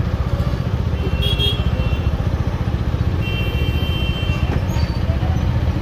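Motorcycle engine idling steadily while stopped in city traffic, a low even rumble. Faint high tones from the surrounding traffic sound briefly about a second in and again for about a second from three seconds in.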